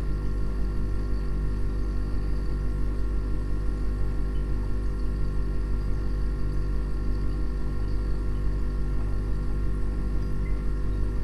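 A steady low drone made of many held tones, strongest in the deep bass, with a fast, even flutter in its loudness and no change throughout.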